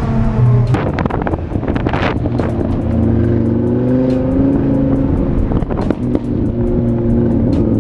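Sports car engine running as the car drives along a street, its pitch rising a little partway through, with music playing over it.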